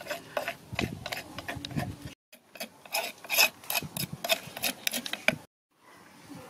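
Metal spoon scraping and clicking against the inside of a wooden mortar while herb paste is scooped out: a run of short scrapes and taps, cut by two brief dead silences about two and five and a half seconds in.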